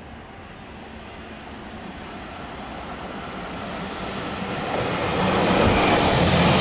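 Electric commuter train approaching, its running noise growing steadily louder and peaking in the last second or two, with faint high wheel tones starting to come through.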